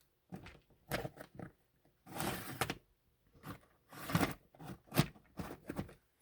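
A series of short knocks, clicks and rustles of workshop items being handled, with a longer rustle about two seconds in.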